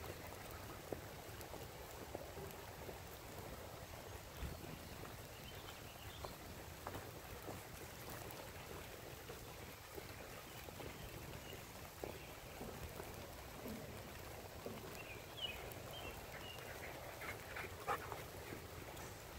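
Faint sounds of dogs moving about on wet woodland ground, with scattered light taps over a steady low hush of the rainy woods. A few short high squeaks come near the end.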